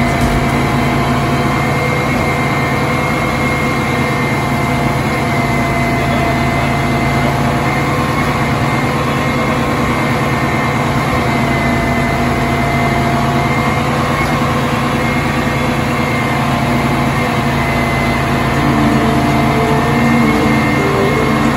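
Sewer cleaning and vacuum truck running its engine and pumps steadily: a low rumble under several held whining tones. About 18 seconds in, a pulsing tone joins and the sound gets slightly louder.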